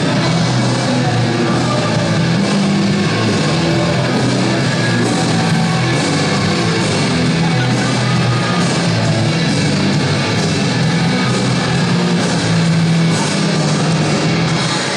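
Loud hard rock music with guitar, playing steadily throughout.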